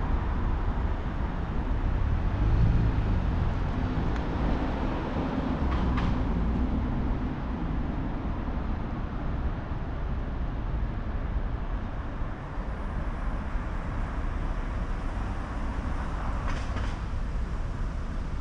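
Steady low rumble of vehicle traffic, with a passing engine louder a few seconds in.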